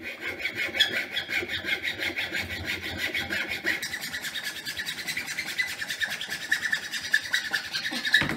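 Small hand saw cutting through a wooden plunger handle: rapid, steady back-and-forth strokes with a raspy scrape, stopping near the end.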